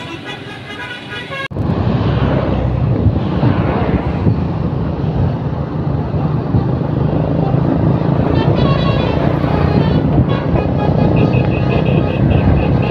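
About a second and a half of music, then a sudden change to a loud bus engine running amid traffic noise, with a steady low hum. Near the end, short high repeated toots of a multi-tone bus horn.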